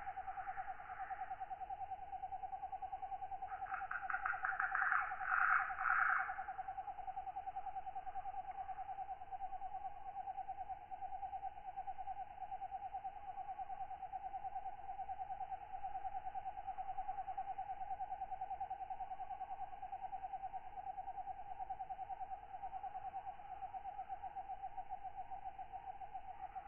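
Katydids calling at night: a steady, fast-pulsing trill, with a louder rasping run of calls from about four to six and a half seconds in.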